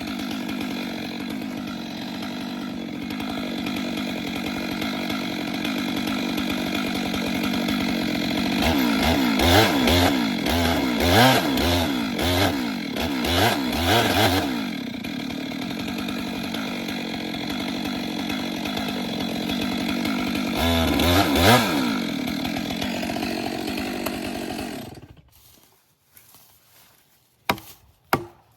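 Chainsaw cutting into a standing tree trunk during a felling cut, its engine pitch swinging up and down as it revs in the cut through two stretches in the middle. The engine dies away near the end, followed by a few sharp knocks.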